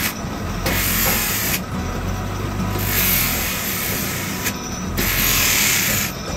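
Grinding wheel on an electric motor grinding a forged steel hammer head: a harsh grinding hiss in three passes of one to two seconds each as the work is pressed on and eased off, with the motor's hum running through the short gaps.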